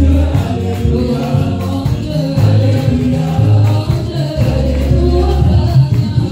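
Gospel praise music: a group of voices singing together over a band with deep, shifting bass notes and a steady percussion beat.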